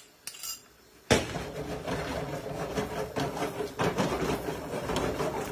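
Maltagliati with sausage and mushrooms being stirred and tossed in a frying pan on a gas hob: a steady sizzle with repeated knocks and scrapes of the pan, starting suddenly about a second in.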